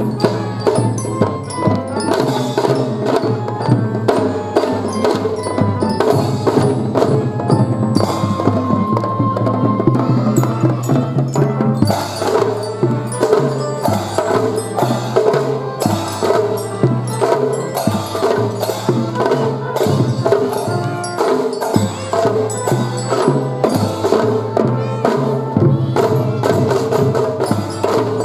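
Children's drum-and-fife band playing a march: quick, steady drum strokes under a bright bell-like melody.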